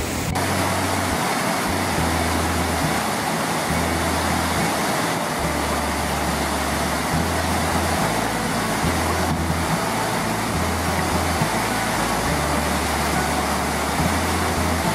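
Steady rush of fast river water pouring through a bamboo fish weir.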